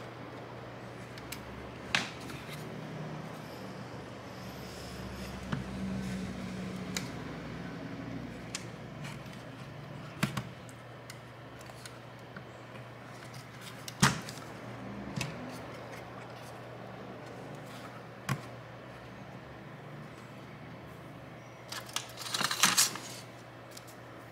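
Scattered small clicks and knocks as the opened Asus PN61 mini PC and its circuit board are handled and shifted, with a quick run of clatter near the end. A steady low hum sits underneath.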